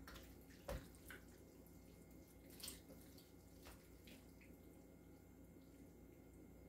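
Faint, scattered taps and wet drips of a ladle scooping chicken and pasta stew from a pot into a bowl, a handful in the first few seconds, then near silence.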